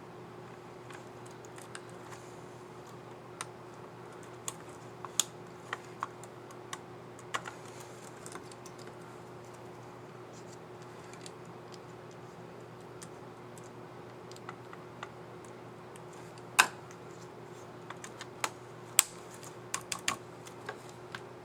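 Scattered plastic clicks and snaps from the keys of an HP 15 BS095MS laptop keyboard as a keycap is handled, snapped onto its scissor mechanism and pressed. The clicks are irregular, with two louder snaps in the second half, over a steady low hum.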